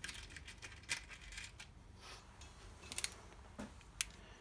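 Small plastic crimp terminals clicking and rattling in a plastic assortment box as they are picked through by hand, then a few sharp single clicks as a pair of crimping pliers is taken up and handled.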